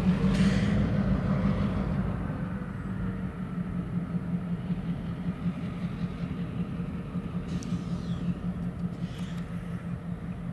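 Diesel locomotive engines running as the units move along the track, a steady low hum and rumble that is loudest in the first couple of seconds and then eases off.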